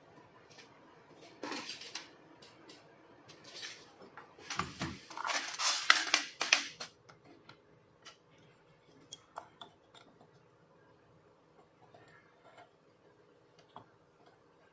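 Metal clinking and scraping as thin steel pieces and tools are handled, loudest from about four and a half to seven seconds in, then a few scattered light clicks.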